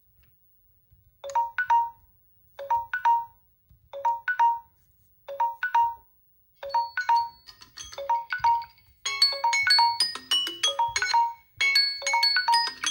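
Samsung Galaxy phone alarm tone playing. A short two-note figure repeats about every 1.3 s, starting about a second in. More notes join around halfway, and it swells into a fuller melody near the end.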